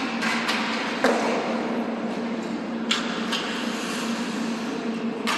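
Hockey sticks and pucks cracking on the ice and boards: several sharp knocks, the loudest about a second in, over a steady low hum and the hiss of the rink.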